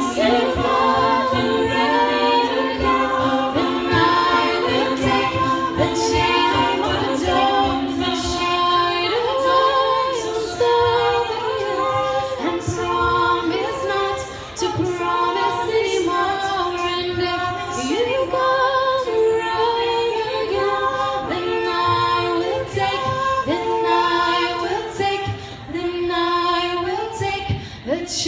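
A cappella vocal group singing in close harmony, several voices moving together through chords, with a low voice holding a steady note through roughly the first third.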